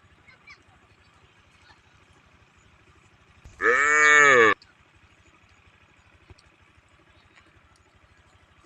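A cow gives one loud call about a second long, a little before the middle. Its pitch rises and then falls.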